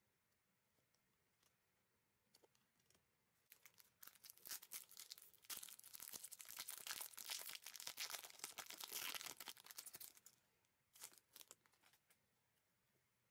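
A trading card pack's wrapper being torn open by gloved hands: a crackly, crinkling tear from about four seconds in until about ten seconds, followed by a few light clicks.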